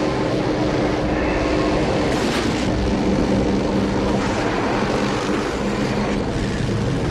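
Film soundtrack of motor vehicle engines running steadily under load, with a couple of brief bursts of noise over them.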